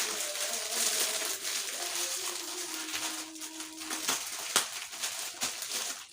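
Rustling and crinkling of packaging and cloth as baby swaddles are handled, with a few sharp clicks after about four seconds.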